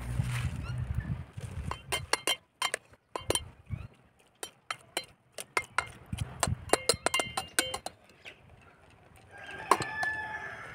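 Metal spoon clinking and scraping against the sides of an aluminium pot of boiling spinach, a rapid run of sharp clinks, some ringing briefly. Near the end a metal ladle strikes the pot, the loudest clank, followed by about a second of ringing.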